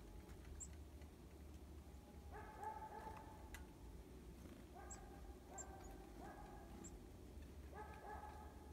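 Faint dog barking in the distance, in three short runs of two or three barks each. A few very faint high ticks are heard between the runs.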